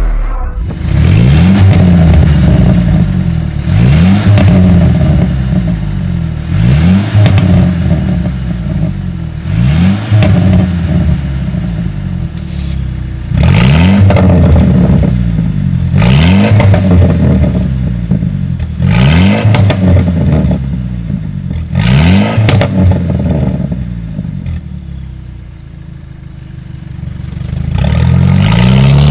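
Mercedes-Benz E300 coupe's 2.0-litre turbocharged four-cylinder revved repeatedly at a standstill through an Fi valvetronic exhaust with its valves open. About ten quick blips each rise and fall in pitch, with crackles as the revs drop. There is a short lull at idle near the end before a last rev climbs.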